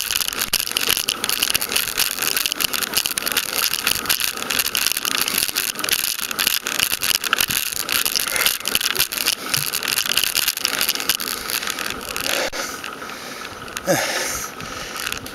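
Rattling and road noise picked up by a camera on a homemade clip mount on a bicycle climbing a steep paved hill: a continuous scraping clatter full of sharp ticks, easing off somewhat near the end.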